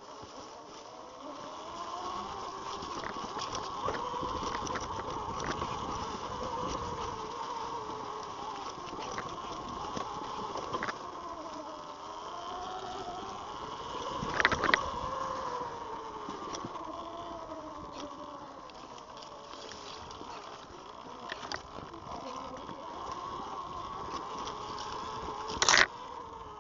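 Eride Pro SS 3.0 electric dirt bike's motor whining, its pitch rising and falling as the speed changes, over a steady higher hum. There are scattered light clicks and knocks, and one loud sharp knock near the end.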